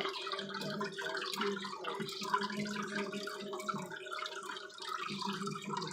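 Water trickling and splashing steadily in an aquarium tank, over a constant low hum as from the tank's pump.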